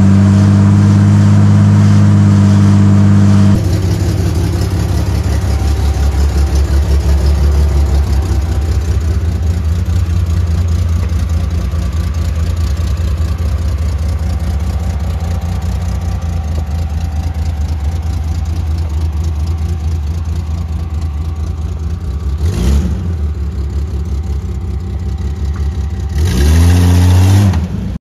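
Jeep Cherokee XJ's freshly rebuilt 4.6-litre straight-six stroker engine running at a steady raised speed for its break-in. After about three and a half seconds it drops to a lower, pulsing run, with a short rev a few seconds before the end and a louder rev rising in pitch near the end that cuts off suddenly.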